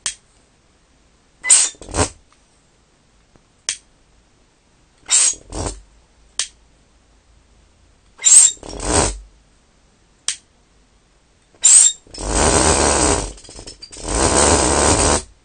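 Empty glass bottle pulse-jet engines fired with fuel alcohol vapour: the vapour lights at the holed cap with short bursts, mostly in pairs, every few seconds, with a single sharp click now and then between. Near the end come two longer buzzing bursts of about a second each as a bottle jet fires and runs briefly.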